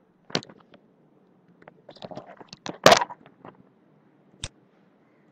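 Sharp clicks and small knocks of a computer mouse and keyboard being worked: one early, a loose cluster in the middle with the loudest near the end of it, and a single click near the end, over a faint low hum.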